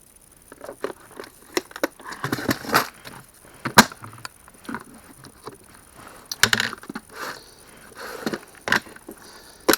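Nails and other small metal hardware rattling and clinking in an organizer tray as it is handled, with scattered sharp clicks.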